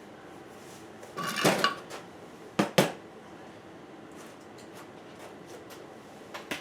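Sheet-metal heat duct pipe clattering as it is handled: a short metallic rattle with a brief ring about a second in, then two sharp clanks in quick succession.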